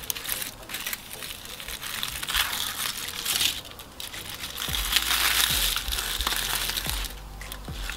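Aluminium foil crinkling and crumpling as it is peeled open by hand, in uneven bursts, loudest a little past the middle and easing off near the end.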